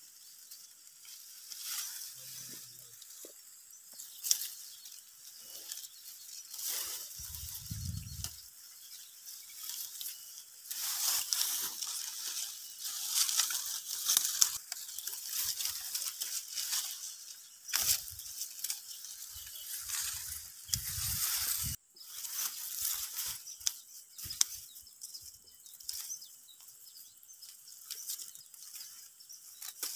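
Dry hill-rice stalks and leaves rustling and crackling in irregular bursts as the rice panicles are handled and harvested by hand. Two brief low rumbles come about eight and twenty-one seconds in.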